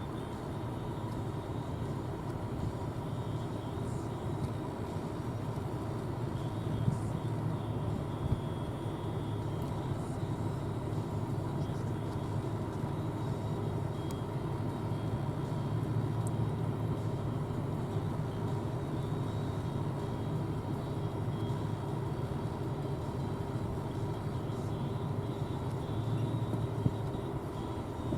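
John Deere S680 combine harvester running steadily while harvesting corn: a constant low diesel-and-machinery drone with a faint steady whine, and a couple of small clicks about 7 and 8 seconds in.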